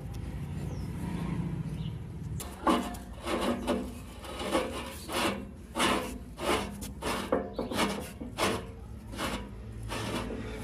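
Repeated rasping strokes of hand tool work on a part, about one to two strokes a second, starting after a couple of seconds of a steady low hum.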